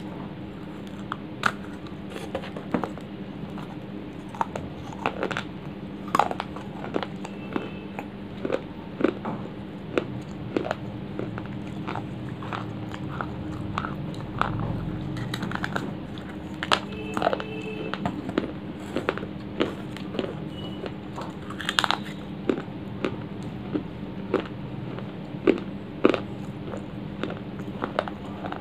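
A lump of dry clay being bitten and chewed close to the microphone: a long run of sharp, irregular crunches and cracks, several a second, over a low steady hum.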